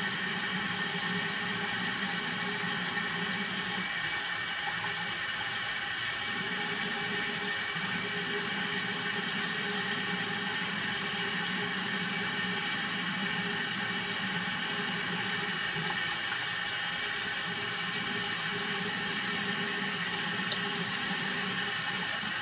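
Bathroom sink faucet running steadily, its stream splashing over hands and into the basin.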